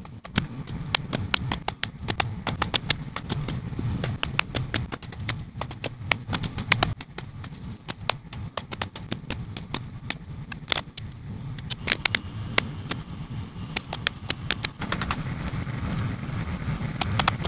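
Pneumatic staple gun firing staples into a wooden frame in quick irregular runs with short pauses, fastening wire mesh. Under it runs the steady low hum of a generator.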